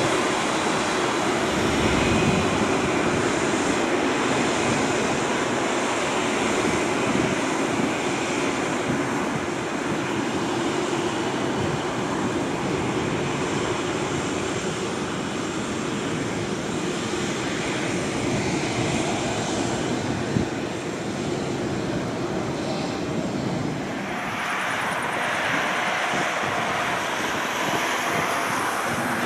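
An Airbus A380's four Engine Alliance GP7200 turbofans running as the airliner rolls slowly on the ground, a steady, even jet engine noise. Near the end the sound thins as the aircraft is heard from farther away.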